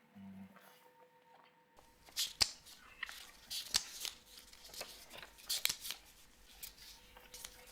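Sheets of paper being handled and leafed through: a string of short, sharp rustles and flicks.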